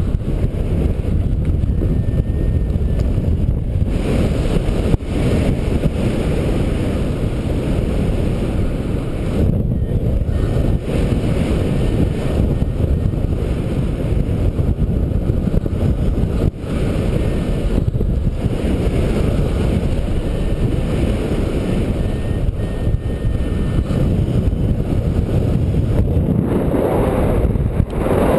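Airflow buffeting the camera microphone of a paraglider in flight, a steady low rushing noise. It swells briefly near the end as the glider banks into a turn.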